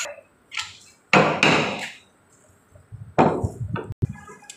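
Metal knocks and scraping from a ratchet pipe-threading die working on a steel pipe clamped in a pipe vise: a loud knock about a second in, then a scrape that ends in a sharp click near the end.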